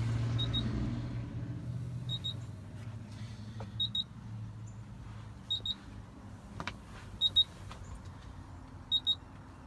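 An electronic warning beeper sounding a short, high double beep about every second and three-quarters, six times in all. A low hum fades out over the first couple of seconds, and a few soft clicks fall between the beeps.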